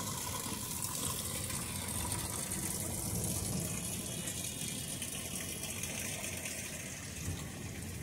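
Rain falling steadily, a continuous hiss of water.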